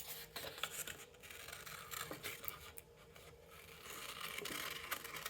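Scissors cutting out a paper circle: a run of small, faint snips with paper rustling and scraping between them.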